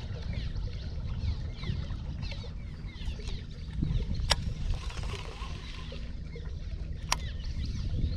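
Outdoor ambience on the water's edge: a steady low rumble, like wind on the microphone, with many short high chirps and two sharp clicks about three seconds apart.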